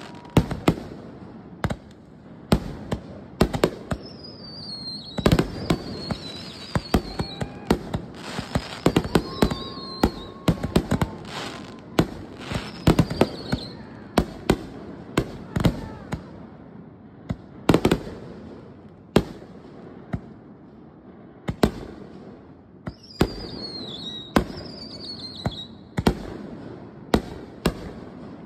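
Consumer fireworks finale: mortar-fired canister and ball shells launching and bursting in rapid succession, a dense, uneven string of sharp bangs. Several high whistles falling in pitch are mixed in.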